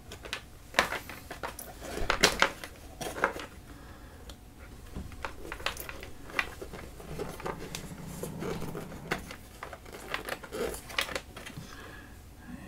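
Hands shifting DC power leads and their plugs around a wooden pedalboard: irregular clicks, taps and light knocks of plugs and cable ends against the board, the loudest cluster about two seconds in, with a stretch of rubbing about eight seconds in as a cable is drawn along.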